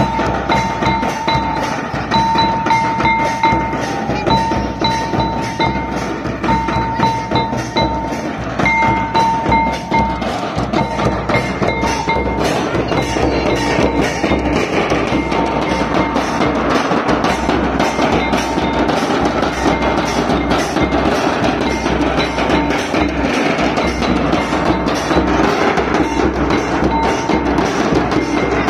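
Traditional Santali festival drumming: large stick-beaten bass drums and a barrel drum keeping a steady beat of about two strokes a second. A held high note sounds on and off over the drumming during roughly the first twelve seconds.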